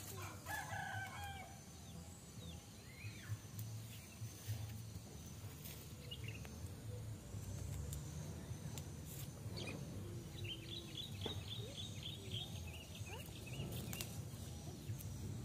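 Chickens calling in the background: a pitched call in the first second, then a quick run of about ten high chirps a little past two-thirds of the way through, over a low steady rumble.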